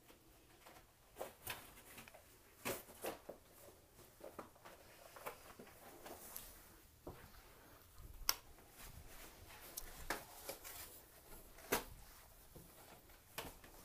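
A dog crinkling and tearing at a colourful package pinned under its paw, making irregular crackles and rustles with a few sharper snaps.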